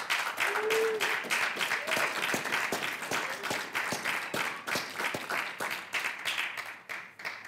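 Audience applauding, with separate claps easy to pick out. The clapping dies away near the end.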